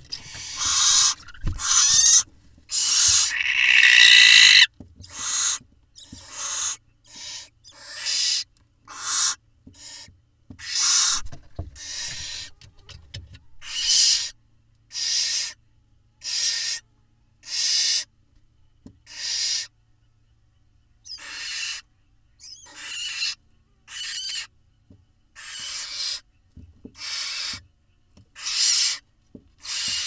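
Barn owl nestlings giving their rasping, hissing food-begging calls, one after another at about one a second, with a longer, louder rasp a few seconds in.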